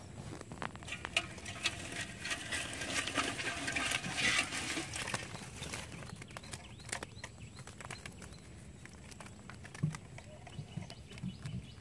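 Bamboo fish trap lifted out of the water and handled on a wooden boat: water splashing and dripping off it, most densely in the first few seconds, with irregular clicks and rattles of the bamboo slats.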